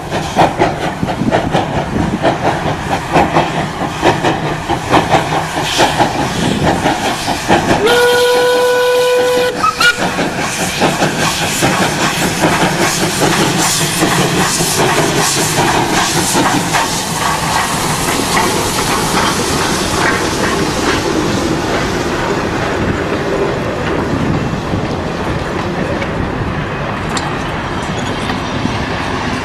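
Steam locomotive working a passenger train, its exhaust beating rhythmically as it approaches, with one steam whistle blast of about a second and a half about eight seconds in. It then passes close by, its exhaust and the coaches' wheels clattering over the rail joints, easing off slightly toward the end.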